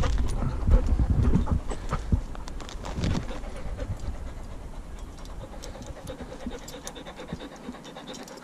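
Labrador puppy panting close to the microphone, with bumps and rustling over the first three seconds as it jumps up against the handler.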